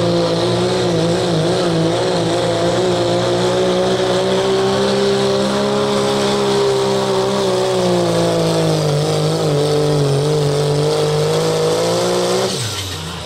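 Turbocharged diesel engine of a Dodge Ram pickup at full throttle, pulling a weighted sled. The engine note holds high and steady with a slight waver for most of the pull, then drops sharply near the end as the throttle comes off and the truck stops.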